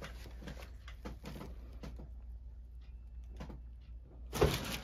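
Y-strap spinal decompression: faint rustles and light clicks as the strap is tensioned, then about four seconds in a sudden loud crack as the strap is tugged and the spinal joints release.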